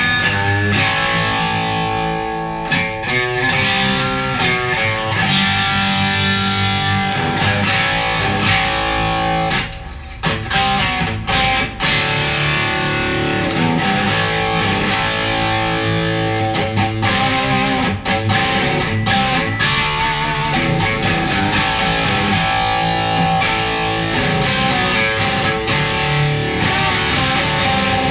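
Reverend Flatroc electric guitar played through a Skreddy Screwdriver overdrive pedal into an amp: driven, distorted chords and riffs. A few short choked stops come about ten seconds in.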